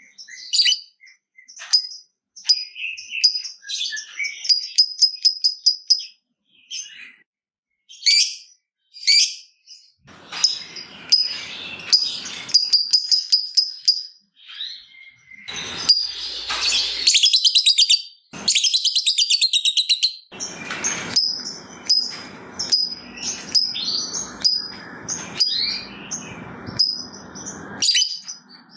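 Lovebirds chirping in rapid, clicking 'ngetik' runs, with a fast even trill, a long 'ngekek' chatter, a little past the middle. In the second half a rough noise runs beneath the calls in pulses about once a second.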